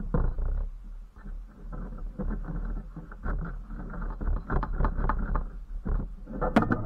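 Steel parts scraping, rubbing and clinking as a leaf spring eye is worked by hand into a welded steel shackle bracket on a bolt for a test fit. There are a few sharper metal clanks near the end.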